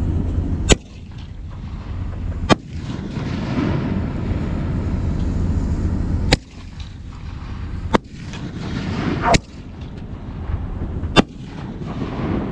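Fireworks display: aerial shells bursting in six sharp bangs, one to two seconds apart, over a steady low rumble.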